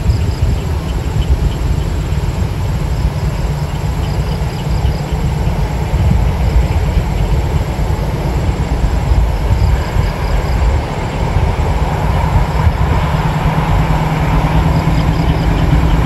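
Distant diesel-hauled passenger train approaching: a low, uneven rumble, with a steady hum that grows in about three-quarters of the way through. Insects chirp in short trills now and then.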